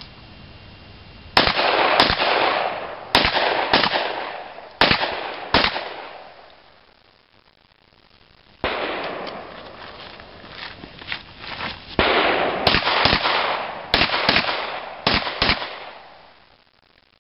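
Rapid semi-automatic pistol shots, each with a long trailing echo, fired in two strings: about six shots over the first few seconds, then a pause of about three seconds, then another quick run of shots.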